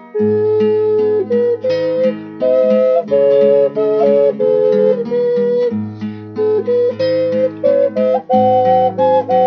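Double ocarina played in two-part harmony: two clear, pure held notes moving together a few steps apart, over a lower accompaniment with a regular plucked pulse.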